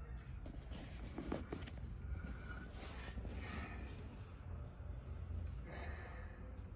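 Soft rubbing and scraping handling noises, scattered through, over a steady low hum.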